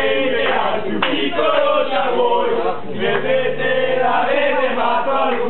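A group of voices, mostly men, singing a song together in chorus, loud and continuous.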